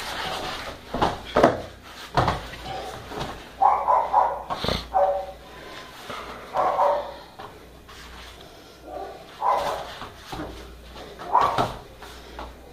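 A dog barking in several short, separate bursts, with a few sharp thumps and scuffling from two people grappling on foam mats.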